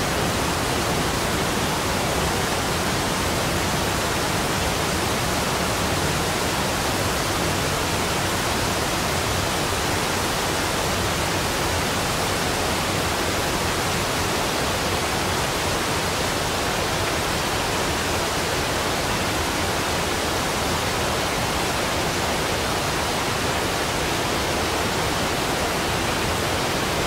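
Floodwater discharging from the Three Gorges Dam's spillway outlets: a loud, steady, unbroken rush of water and spray.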